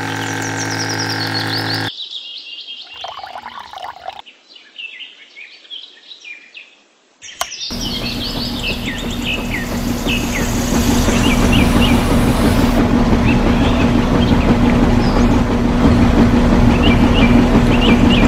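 Background music cuts off about two seconds in, leaving birds chirping over a quiet background. About eight seconds in a small motor starts and runs steadily with a low hum, growing louder a couple of seconds later while the birds keep chirping.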